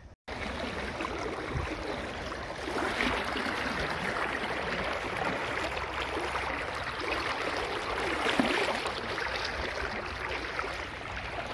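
Fast-flowing river water rushing and swirling around the legs and body of a person wading through the current, close to the microphone; it gets louder about two and a half seconds in.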